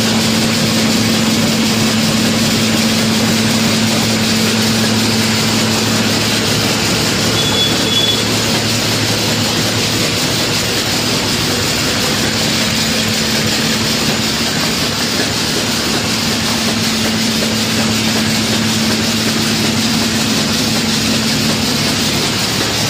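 Atta chakki flour mill running steadily while grinding wheat: a loud, constant machine noise with a steady low hum underneath.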